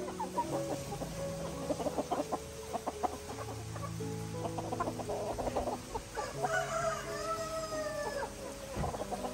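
A flock of hens and roosters clucking and pecking, with one rooster crowing in a single long call about six seconds in.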